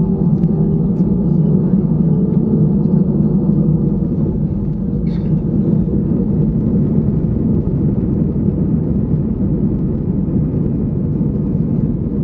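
Steady cabin rumble inside an Airbus A319 rolling on the ground: the jet engines' drone mixed with wheel and airframe noise, heard from a seat over the wing.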